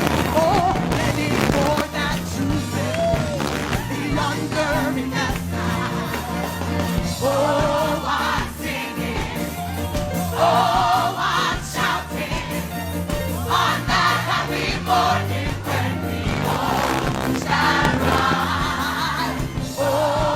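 Gospel music: a choir singing over steady instrumental accompaniment in an old-time church style.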